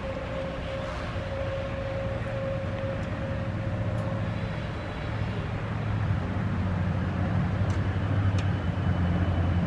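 Canadian National diesel locomotive engine idling just after start-up: a steady low throb that gets louder about halfway through.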